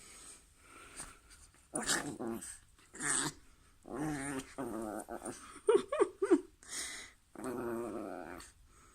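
Dog growling in play while guarding a toy: a series of drawn-out, buzzing growls, with a few short, higher whining yips about six seconds in.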